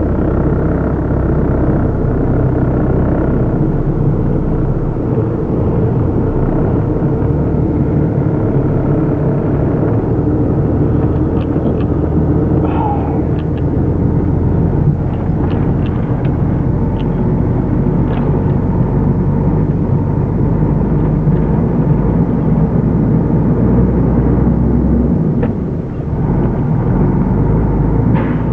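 Diesel engine of a Renault Magnum tractor unit running, heard from inside its cab as the truck pulls slowly away, a steady low rumble. A few faint clicks come in the middle.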